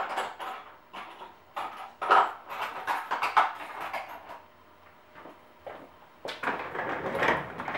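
Tools and small metal parts being rummaged through and handled: irregular clicks, knocks and clattering, busiest near the end, with no drill running.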